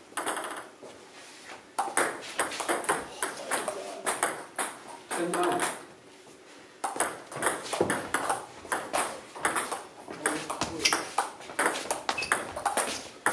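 Table tennis rallies: the ball clicking sharply off bats and the table in quick succession. There is a short lull about six seconds in, before the clicking resumes.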